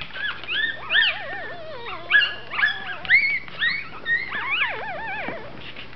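Newborn Mi-Ki puppies squeaking and whimpering: a run of short, high calls that rise and fall in pitch, several overlapping, dying away near the end.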